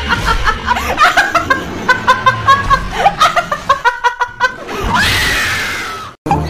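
A woman laughing hard in rapid bursts, then a long shriek about five seconds in that falls in pitch and cuts off suddenly.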